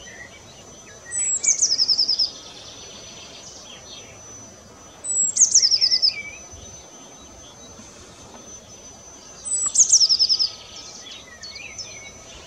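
Eurasian blue tit singing: three song phrases about four seconds apart, each a couple of high thin notes running straight into a fast trill.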